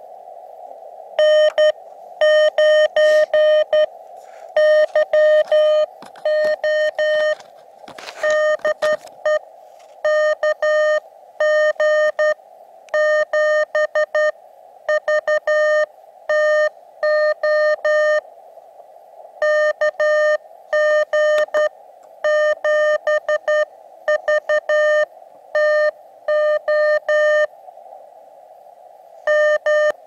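Morse code (CW) coming in over a portable HF transceiver's speaker: a strong, steady beep of one pitch keyed on and off in dots and dashes, in groups with short pauses, over the receiver's narrow band of hiss.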